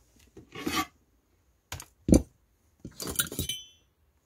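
Small hand tools being handled and set down on a wooden workbench: a short scrape, a click and a sharp knock about two seconds in, then a clatter ending in a brief metallic clink.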